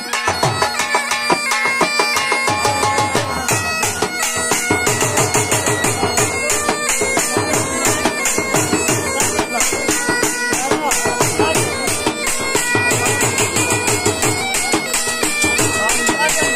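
Bagpipe playing a fast folk melody over a steady drone, with a dhol drum beating a quick rhythm beneath it.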